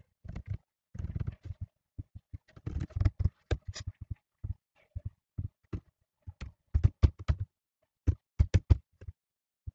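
Computer keyboard keys and mouse buttons clicking in short, irregular bursts, with a quick run of keystrokes near the end.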